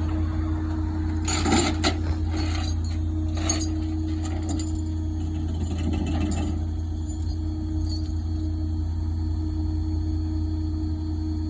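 Steady low hum of a running vehicle engine, with a stretch of rattling, jangling clicks from about a second in until about halfway through.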